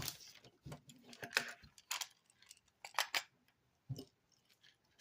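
Hard plastic action-figure parts clicking and knocking as they are handled and fitted together: a string of short, irregular clicks, a few of them sharper.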